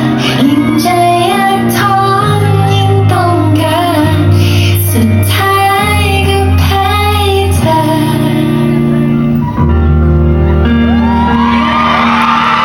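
A song with female singing over a backing track with steady bass notes, played loud through a hall's sound system. Near the end the singing gives way to a crowd cheering.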